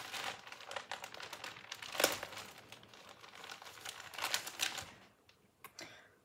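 Trading cards and the clear plastic pocket pages of a card binder being handled, with crinkling and rustling full of light clicks and taps. It dies away about five seconds in, leaving only a couple of faint ticks.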